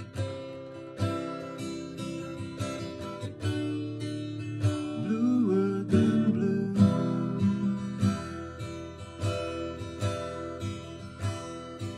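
Acoustic guitar strummed and picked in a slow ballad, with steady chords and regular strokes. A short wordless vocal line joins about five seconds in.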